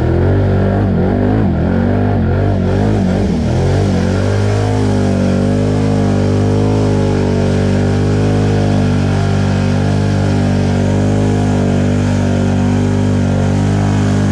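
Can-Am Outlander 850 XMR ATV's V-twin engine, revving up and down with the throttle for the first four seconds or so, then running at a steady pitch under a constant throttle.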